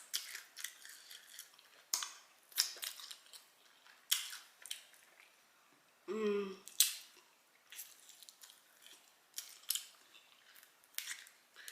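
Close-miked chewing of fried chicken wings: a run of short crunches and wet mouth clicks, with one brief vocal sound about six seconds in.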